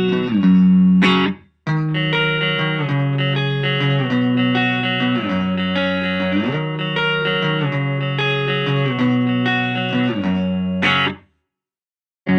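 Electric guitar played through a mini guitar practice amplifier: held chords with sliding changes. There is a short break just after a second in, and the playing stops about a second before the end.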